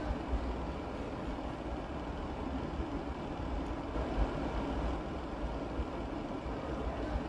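Steady low rumble and hiss of background machinery noise, with no distinct events standing out.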